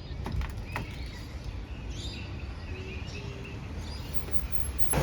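Outdoor ambience: birds chirping faintly over a low steady rumble, with a couple of light clicks in the first second.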